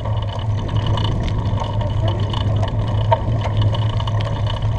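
Steady wind noise buffeting the microphone of a bicycle-mounted action camera, riding into a headwind.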